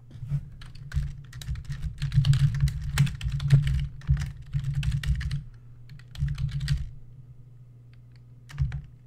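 Typing on a computer keyboard: a quick run of keystrokes for about five seconds, a short burst a second later, then a pause and a few more keystrokes near the end.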